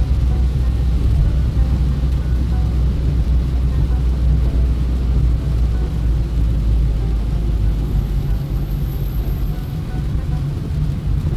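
Steady low rumble of a car driving on a rain-wet road, heard from inside the cabin.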